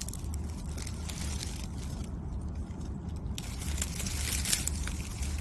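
Faint rustling and crackling of dry leaves and undergrowth, with scattered small clicks.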